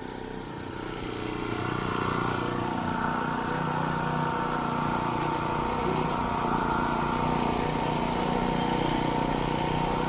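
Small gas engine of a vibrating power screed running steadily as the screed is drawn across wet concrete, swelling a little over the first couple of seconds and then holding level.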